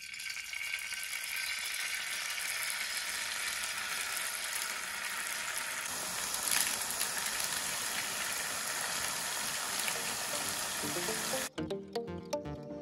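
Jalebi batter frying in a pan of hot oil: a steady sizzle as spirals are piped in. Near the end the sizzle cuts off suddenly and music takes over.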